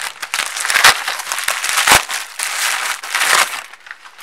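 Parcel packaging and an anti-static shielding bag crinkling and rustling as they are opened and handled, with two sharp cracks about one and two seconds in.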